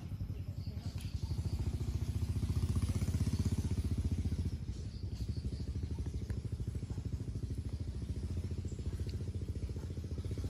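A small engine running steadily nearby, a low, rapid, even pulsing that grows louder over the first few seconds and then holds.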